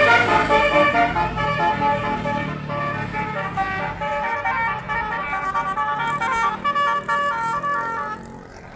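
A bus's multi-tone 'telolet' air horn playing a quick melody of changing notes, several tones at once, over a low engine rumble. The sound fades away near the end.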